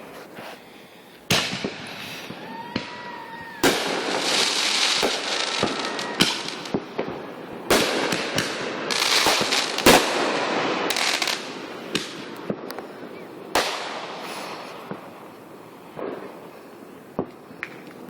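Consumer fireworks going off: a string of sharp bangs with crackling in between, heaviest in the middle and thinning toward the end. A short whistling tone comes a few seconds in.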